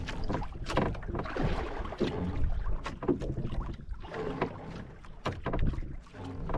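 Wind buffeting the microphone and water washing against a small boat's hull at sea, with scattered irregular knocks and taps.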